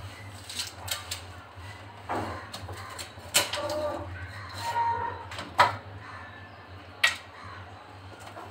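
Raw, partly thawed layer-chicken pieces being cut on a boti blade over an aluminium pot: about six sharp knocks and clicks of meat, bone and blade against the metal, spread out, over a steady low hum.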